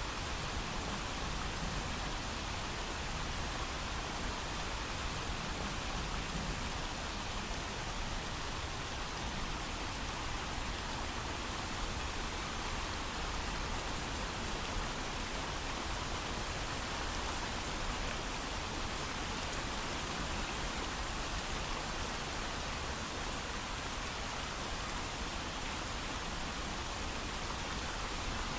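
Steady heavy rain without thunder, an even hiss of falling drops with no distinct individual hits.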